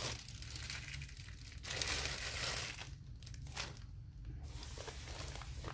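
Crinkling and rustling of the white wrapping around a rolled diamond painting canvas as it is handled and opened, coming in irregular bursts with short quiet gaps.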